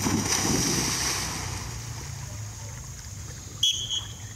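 Yellow Labrador retriever plunging into a pond with a splash in the first second, the water noise fading as it swims away. Near the end, a click and a brief high steady tone.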